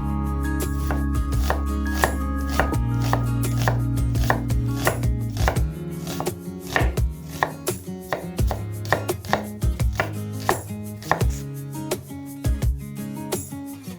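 Kitchen knife chopping vegetables on a cutting board, in steady even strokes at about two a second.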